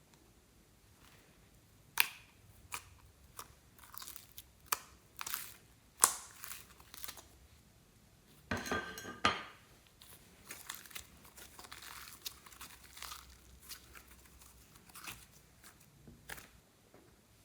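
Slime being handled and mixed by hand: scattered sharp pops, clicks and crackles, with a denser burst of crackling about halfway through.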